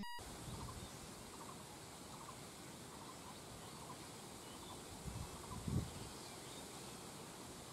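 Quiet outdoor ambience with faint, repeated bird calls, and two soft low bumps about five and six seconds in.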